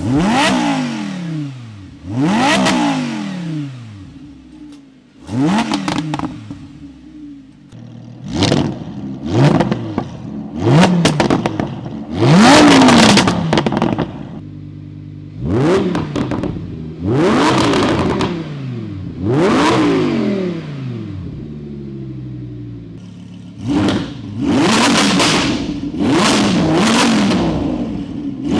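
2020 Audi R8's naturally aspirated V10 being revved while stationary: about ten quick throttle blips, each rising sharply and falling back to a steady idle, one held a little longer about twelve seconds in, with some crackle as the revs drop.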